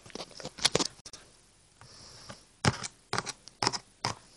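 Handling noise: a scatter of light plastic taps and clicks as small toy figurines are moved about and the phone is handled, with a short soft hiss about two seconds in.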